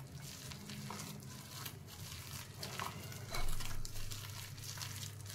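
A hand mixing thick ground urad dal (black lentil) paste in a bowl: a quiet run of irregular squishing strokes.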